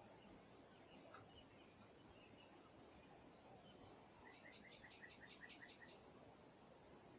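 A bird calling: a quick series of about ten repeated notes, some seven a second, lasting about a second and a half around the middle, with a few faint chirps before it over a quiet outdoor background.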